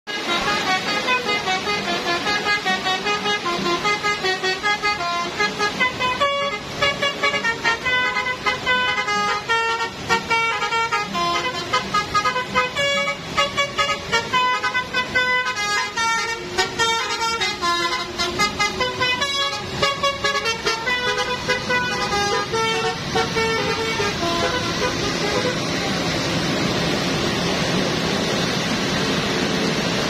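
Bus's telolet basuri musical horn playing a tune of quick changing notes for most of the time. About three-quarters of the way through it stops, leaving a steady rushing noise of rain and the bus engine.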